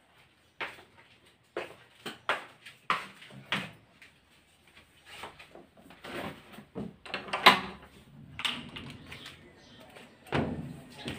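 Footsteps, then metal barrel bolts clacking as a panelled door and then a mesh screen door are unlatched and opened. The loudest is a sharp clack about halfway through, and the screen door rattles open near the end.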